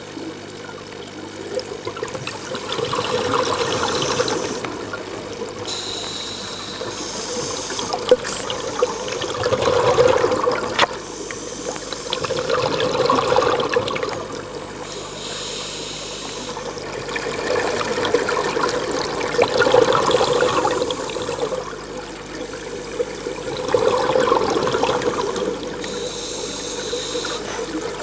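Scuba diver breathing through a regulator, heard underwater: a short high hiss on each inhale, then a longer rush of bubbling exhaled air, repeating over several breaths.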